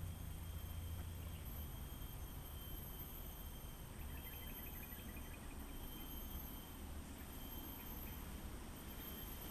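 Steady high-pitched insect buzzing that breaks off and resumes, over a low rumble, with a short run of faint chirps about four seconds in.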